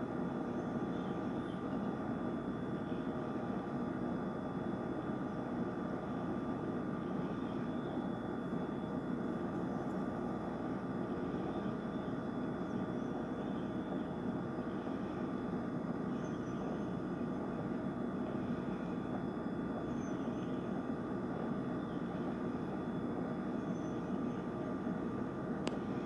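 A steady low background hum with a few constant tones running through it, like distant machinery or traffic. Faint high chirps come and go now and then.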